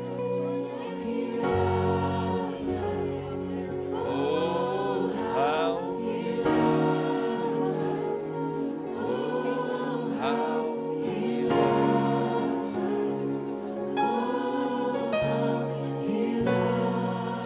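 Gospel music with a choir singing over sustained keyboard chords and a bass line.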